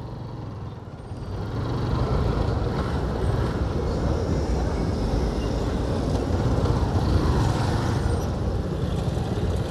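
Road traffic noise in slow, congested traffic: vehicle engines running with a steady low rumble that grows louder about a second in and then holds.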